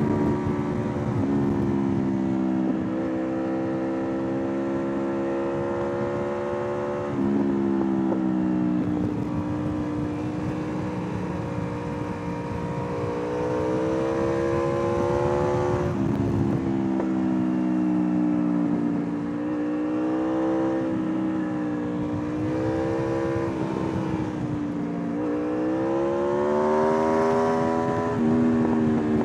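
Aprilia RSV4 R's 1000 cc V4 engine under way, its pitch climbing as it accelerates and dropping abruptly at gear changes a few times, with wind rush underneath.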